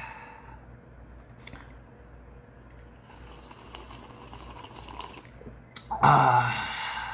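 A man sipping a drink from a ceramic mug with soft slurping sounds, between two satisfied 'ahh' exhales. One fades out at the start, and a louder one comes about six seconds in.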